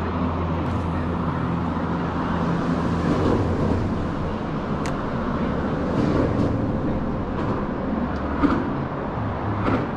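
Steady rumble of road traffic crossing the concrete highway bridge overhead, with a few short sharp knocks mixed in.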